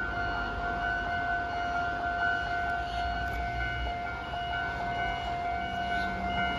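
Railway level-crossing warning alarm sounding, a steady electronic tone with a higher tone pulsing on and off in a regular repeating pattern.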